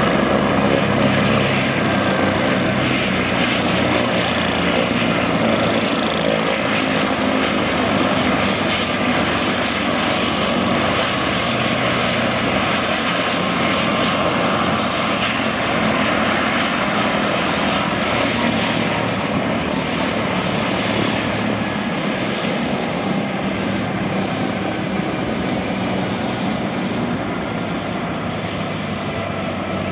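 Agusta A109E Power twin-turbine helicopter running on the ground with its rotors turning: a steady turbine whine over the beat of the rotor, growing slightly quieter toward the end.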